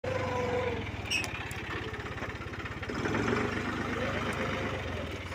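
Heavy machine's diesel engine running steadily with a low throb, with a brief click about a second in.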